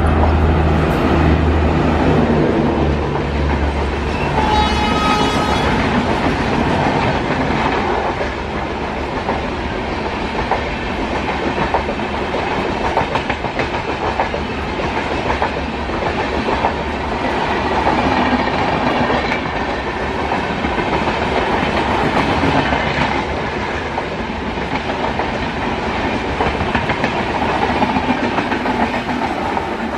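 A WAP7 electric locomotive and its AC double-decker express coaches passing at speed. A low hum comes from the locomotive in the first few seconds, with a brief tone about five seconds in, then the steady clickety-clack of the coaches' wheels over the rail joints.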